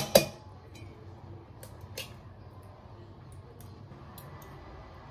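An egg is tapped against the rim of a stainless steel bowl to crack it: sharp knocks right at the start, the loudest sound here. Then come a few faint clicks as a fork scoops mayonnaise out of a jar.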